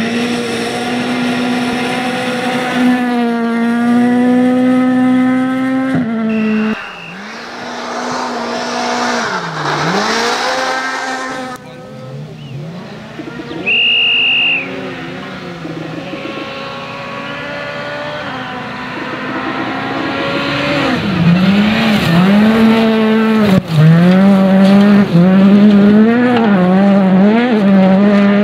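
Ford Fiesta R2 rally car's 1.6-litre four-cylinder engine revving hard and dropping away through gear changes and lifts, over several separate passes. About halfway through, a brief high steady tone sounds over it.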